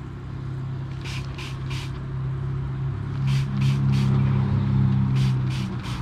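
Hand trigger spray bottle squirting cleaner in quick bursts of three, three times over. A steady low hum runs underneath and grows louder about halfway through.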